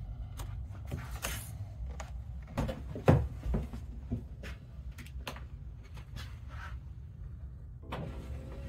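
Scattered clicks and knocks of a plastic in-channel window visor being handled and pressed into a car door's window channel, with one louder knock about three seconds in. Faint music comes in near the end.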